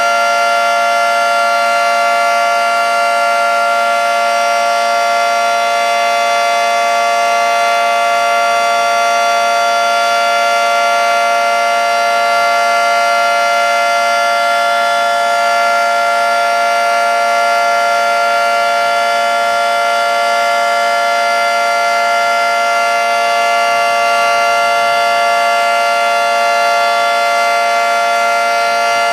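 Federal Signal 2T22 two-tone electromechanical outdoor warning siren sounding a steady alert for its monthly test, held at full speed with an unchanging pitch and loud throughout.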